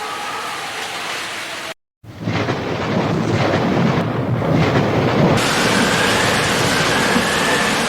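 Steady rain that cuts out for a moment about two seconds in. It comes back heavier, with a low rumble of thunder under it for a few seconds.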